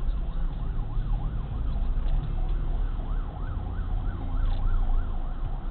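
Emergency-vehicle siren in a fast yelp, its pitch rising and falling about four times a second and growing stronger about three seconds in, over a steady low road rumble.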